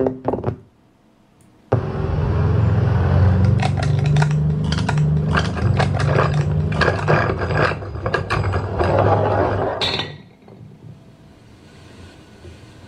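MUTO creature sound effect played through speakers: a low rumble under rapid clicking that starts suddenly about two seconds in and falls away to a faint hum about ten seconds in.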